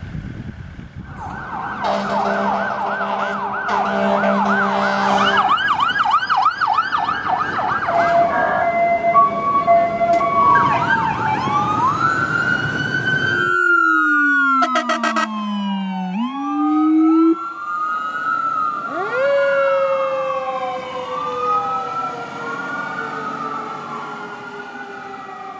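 A string of different emergency-vehicle sirens cut one after another. It starts with a fast yelp, then a two-tone hi-lo. After that come long rising and falling wails and a low tone that falls and climbs again, with several sirens wailing over one another near the end.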